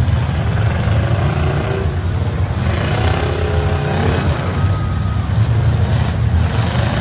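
V8 demolition derby cars' engines running together, a loud, dense low rumble, with some wavering higher notes of engines revving in the middle.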